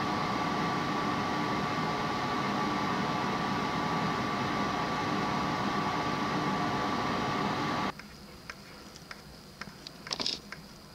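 Steady mechanical hum with a faint high whine, cutting off abruptly about eight seconds in. A few faint light clicks follow, from steel tweezers picking up melee diamonds on a metal plate.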